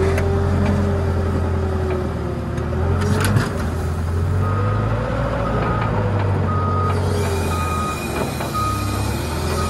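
Tractor engine running under load with a whine that wavers in pitch while the front loader lifts the snowplow blade, and a single clunk a little past three seconds in. From about halfway, a reversing alarm sounds short beeps a little more than once a second.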